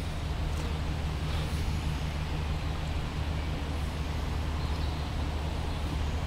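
Steady low outdoor background rumble, even throughout, with no distinct events.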